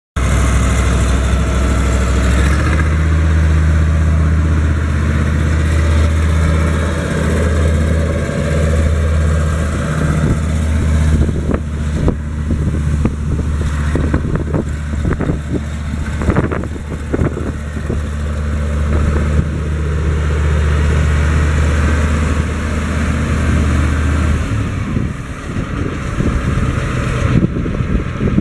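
Caterpillar 3208 V8 diesel engine of a Steiger Bearcat 4WD tractor running loudly as the tractor drives. Its steady deep drone drops away about 24 seconds in, leaving a rougher, uneven running sound.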